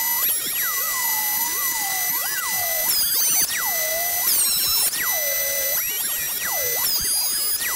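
Benchtop thickness planer running with a glued-up hardwood board passing through it. Its motor whine drops sharply in pitch and recovers again and again, about every second or so, as the cutterhead bogs under the cut.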